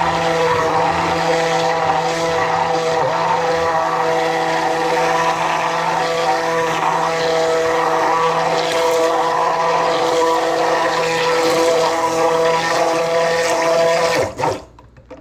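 Stainless-steel stick blender running steadily at a constant pitch in a glass measuring cup of raw cold-process soap batter, blending the oil and lye to trace. It is switched off about fourteen seconds in, its pitch falling as the motor winds down.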